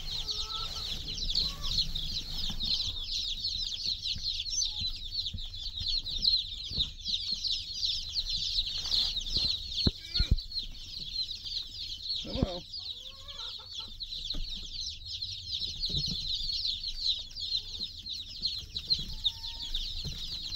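A large brood of day-old chicks peeping without pause, many short falling cheeps overlapping into one high chorus. A few sharp knocks sound about halfway through as the chicks are handled.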